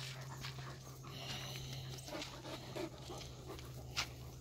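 Young Irish Wolfhound panting after a run, over a steady low hum, with a single sharp click about four seconds in.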